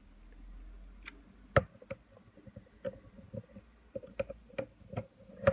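Small clicks and taps of a precision screwdriver and a plastic lens barrel being handled during reassembly, with a sharper click about one and a half seconds in and another at the end.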